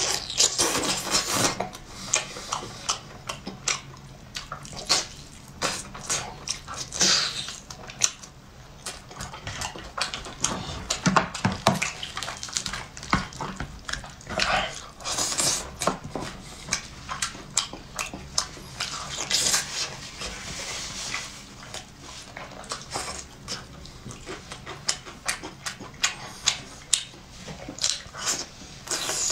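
Close-miked eating sounds: wet chewing, lip-smacking and sucking as meat is pulled apart by hand and eaten, with many short irregular smacks and clicks.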